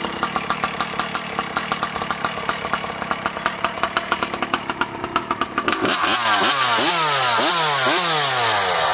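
Jonsered 2171 two-stroke chainsaw fitted with an expansion chamber pipe, idling with an even pulse, then revved hard about six seconds in, its pitch rising and dropping again and again.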